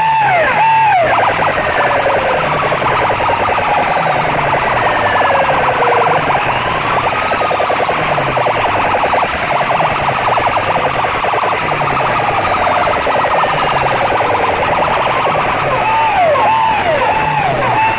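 Siren sound effect blaring at full volume through a stack of horn loudspeakers. Quick repeated falling whoops come near the start and again near the end, with slower rising and falling wails in between, all over a repeating low bass pattern.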